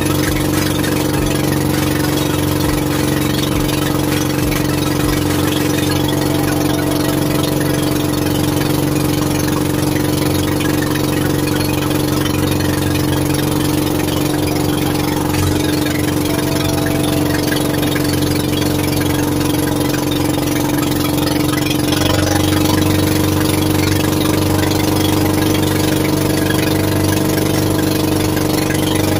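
Fishing boat engine running steadily at a constant speed, a little louder about three quarters of the way through.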